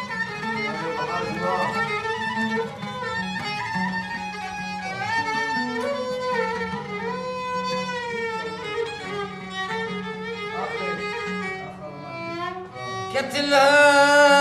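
Instrumental interlude of Middle Eastern folk music led by a violin playing a gliding, ornamented melody over a steady low held tone. Near the end, the music gets suddenly louder and fuller.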